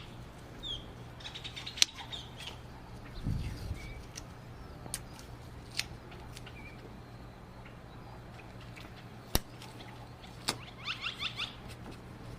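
Masking tape being pulled off the roll, torn and pressed on by hand: scattered sharp clicks and taps, a soft thump about three seconds in, and short squeaky chirps twice, over a steady low hum.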